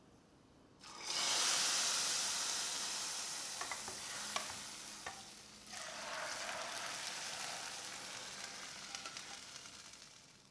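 Hot oil and ghee sizzling in a pan as the molokhia tasha of minced garlic fries. The sizzle flares up suddenly about a second in and again about six seconds in, fading after each, with a utensil stirring and lightly tapping the pan between.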